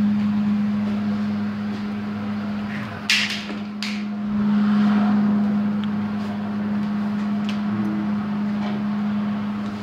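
A steady low electrical hum with a few faint ticks, and two short hissing noises about three seconds in.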